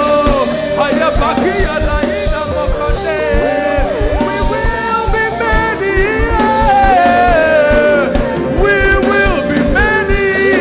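Live worship band music, loud and continuous, with drum beats under a sliding melodic lead line that may be a voice or an instrument.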